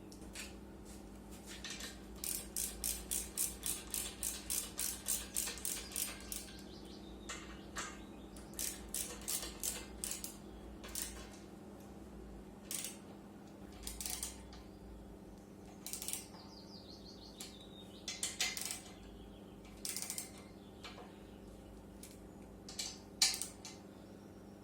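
Sharp mechanical clicking, about three clicks a second for several seconds, then clicks in scattered ones and twos, over a steady low hum.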